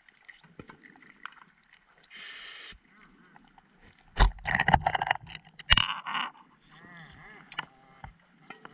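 Divers' breathing gear heard underwater: a short steady hiss of gas about two seconds in, then a loud rush of bubbles lasting about two seconds, with scattered clicks and gurgles around it.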